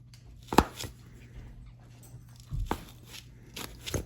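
A few sharp knocks or taps, the loudest about half a second in, over a steady low hum.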